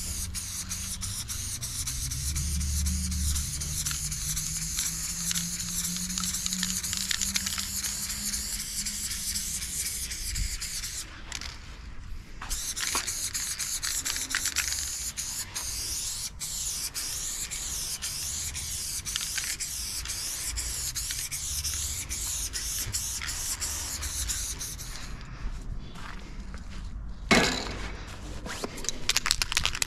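Aerosol spray paint can hissing in long, steady bursts as teal paint goes onto a concrete wall, with two short breaks around 11 and 12 seconds in. The spraying stops about 25 seconds in, and a sharp knock follows near the end.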